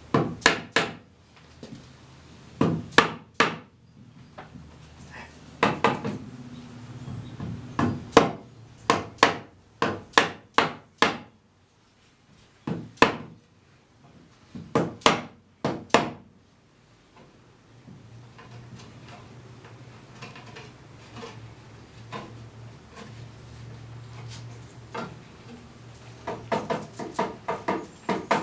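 Hammer knocking wooden Windsor chair spindles into their holes: sharp knocks, singly and in quick runs of two to four, most of them in the first half. Later a faint steady hum, then a quick patter of lighter taps near the end.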